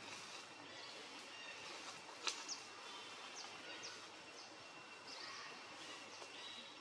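Faint forest background with a few short, high, downward-sliding bird chirps and a steady faint high tone, plus one sharp click a little over two seconds in.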